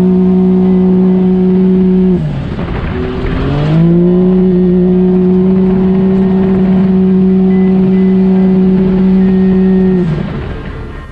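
Side-by-side UTV engine running hard, its note held at one steady high pitch. About two seconds in the revs drop away, then climb back up a second and a half later and hold again, falling off near the end.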